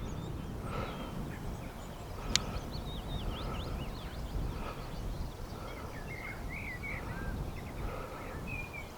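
Wind rumbling on the microphone, with small birds twittering in many short rising and falling chirps. A single sharp click about two and a half seconds in.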